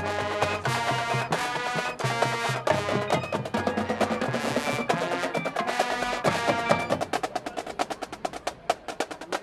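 High school marching band playing its field show: full brass and wind chords over drums. About seven seconds in the chords drop away and the drum line carries on alone with rapid drum strokes.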